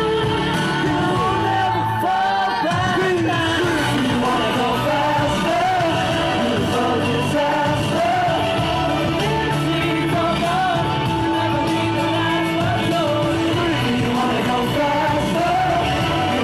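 Live pop music with a singer's voice carrying the melody over the band's amplified backing.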